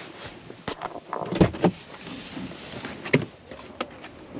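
Knocks, rustles and clicks of a person moving in a minivan's driver seat and opening the driver's door, with a low thump about one and a half seconds in and a sharp click about three seconds in.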